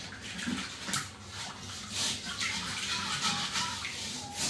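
Water running and splashing as something is washed by hand, uneven in level, with a few sharp knocks.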